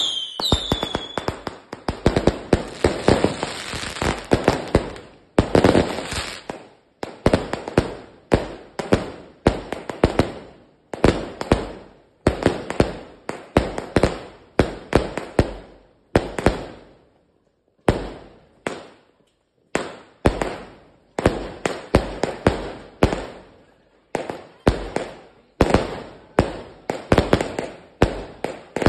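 A 138-shot consumer firework cake firing: a fast, continuous volley of launches and bursts popping in quick succession, with a brief lull about seventeen seconds in.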